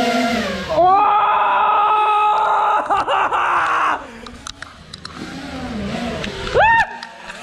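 FPV racing quad's brushless motors and propellers whining in flight. The pitch climbs sharply about a second in and holds steady for about three seconds, then falls away, with a short rising-and-falling throttle blip near the end.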